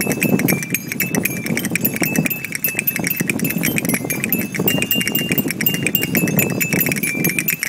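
Strong wind with a fast, dense rattling flutter and a thin high whistle holding near one pitch, dipping slightly now and then, over a low rush.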